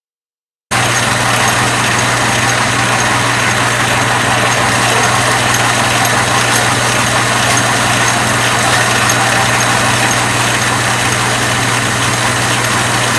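Atlas metal lathe running steadily while taking a light power-feed cut, with a homemade plastic gear in its reverse mechanism: an even motor and gear hum over a broad running noise. The sound starts abruptly less than a second in.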